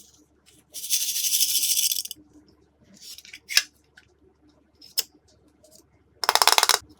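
Hand-mixed slime making fast crackling clicks in two bursts, a longer one about a second in and a shorter, louder one near the end, with a couple of single sharp clicks between.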